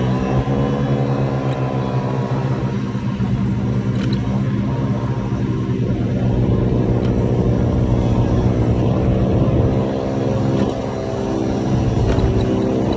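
Motor scooter engine running under throttle while riding: its note climbs in the first half second, holds steady, sags briefly about ten and a half seconds in, then climbs again near the end.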